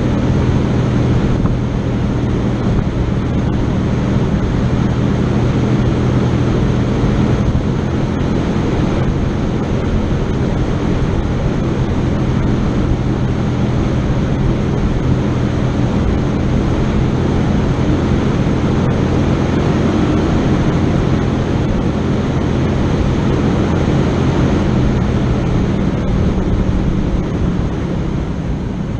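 A vehicle engine running steadily, its low hum holding one pitch under a rough rumbling noise, easing off slightly near the end.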